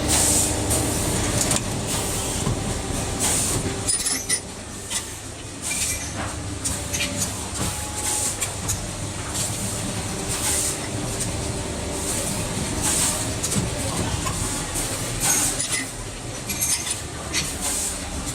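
Factory machinery running: an injection moulding machine moulding the outer jacket onto USB cables, with a steady low hum and repeated short hisses and clacks at irregular intervals.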